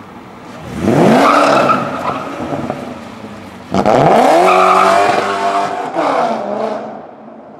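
Modified car engine under hard acceleration: the revs climb steeply about a second in, then climb again after a sharp crack at about four seconds, and the sound fades away near the end.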